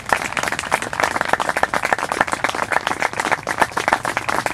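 Audience applauding: many hands clapping steadily and unevenly.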